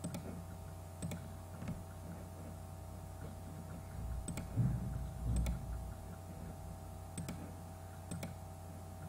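Computer mouse clicking, single sharp clicks every second or few seconds, over a steady electrical hum. A couple of low dull bumps come about halfway through.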